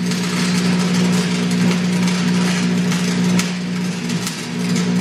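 Wire-feed welder arc crackling and sizzling steadily as a weld bead is run along a steel tube joint, over a steady low hum.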